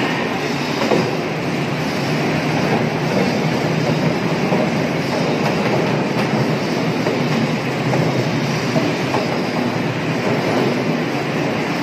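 Pomegranate sorting and grading machine running steadily: the continuous mechanical noise of its rollers and conveyors carrying fruit along the line.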